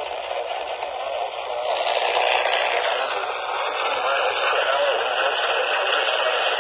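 Radio static: a steady hiss from a receiver, swelling over the first couple of seconds and then holding level.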